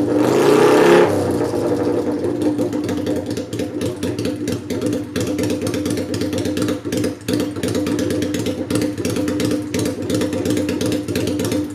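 Kawasaki Vulcan 400 Classic V-twin through a homemade straight-pipe shotgun exhaust with no silencer and no air cleaner, running on stock carburettor settings. A short blip of the throttle in the first second falls back to a loud, lumpy, uneven idle.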